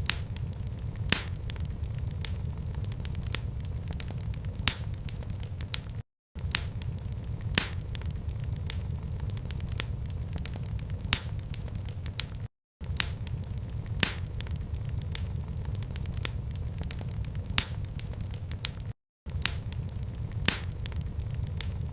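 Fireplace fire crackling: a steady low rumble with sharp pops scattered through it. The sound cuts out completely for a moment three times, about every six seconds.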